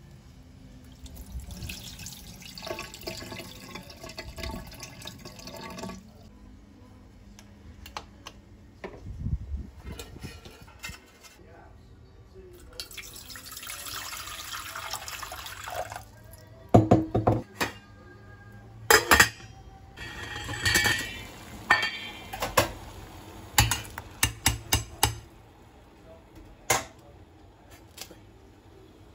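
Water splashing in a stainless steel sink as rice is rinsed and drained from a bowl. Later, water is poured from a glass jug into a stainless steel saucepan. In the second half there are many sharp clinks and knocks of pots and kitchen utensils.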